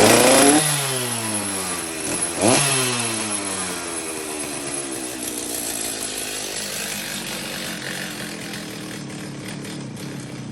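Stihl two-stroke chainsaw engine coming down from high revs to idle over about two seconds, blipped briefly once about two and a half seconds in, then idling steadily.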